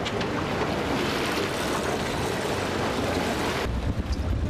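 Steady rushing noise of wind and sea aboard an open boat, with wind buffeting the microphone. About three and a half seconds in the hiss drops off suddenly and a lower, gusty wind rumble takes over.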